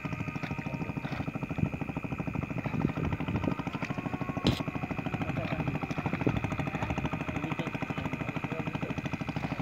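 A small engine running steadily with a rapid, even thudding beat of about ten a second, under a steady high whine. A single sharp click about halfway through.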